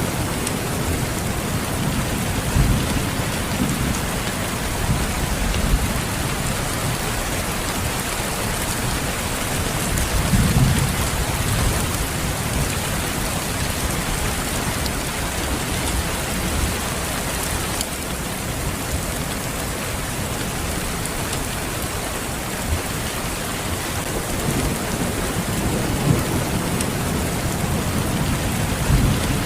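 Steady heavy rain, with low rumbles of distant thunder swelling a few times, the strongest about ten seconds in and another near the end.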